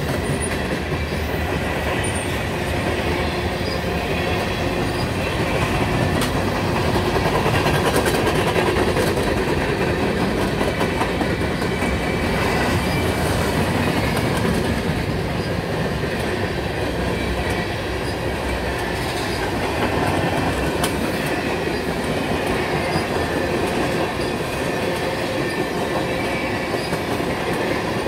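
Freight train of boxcars and tank cars rolling past at close range: a steady rumble of steel wheels on rail, with light clicking as the wheels cross rail joints.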